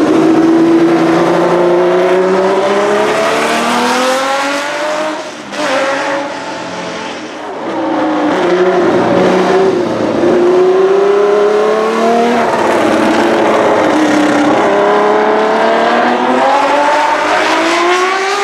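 1972 Tecno PA 123/3 Formula One car's 3-litre flat-twelve (180° V12) engine being driven hard. Its pitch climbs in repeated pulls, each ending in a quick drop, with a quieter stretch from about five to eight seconds in.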